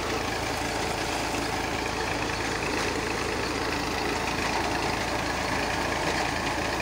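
Massey Ferguson 240 tractor's three-cylinder diesel engine running steadily at constant speed, driving a tubewell pump through a flat belt and pulleys.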